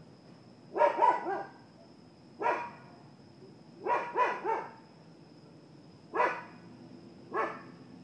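Dogs barking outdoors, in short sharp barks: a quick run of three, a single bark, another run of three, then two single barks, with pauses of a second or more between them.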